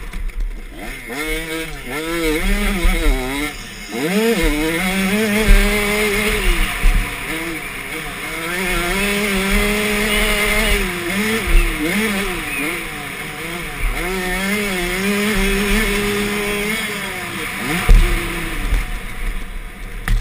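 KTM 85 two-stroke motocross bike ridden hard, heard from the rider's helmet: the engine revs up and falls back again and again as it is worked through the turns and straights, with wind rushing over the microphone and low thumps from the ground. Near the end the engine falls off the throttle.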